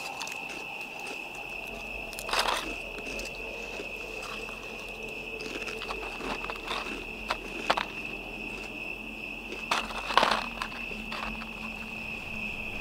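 Crickets chirring steadily in one high, unbroken tone, with a few sharp crackles, the loudest about two and a half seconds in and again about ten seconds in.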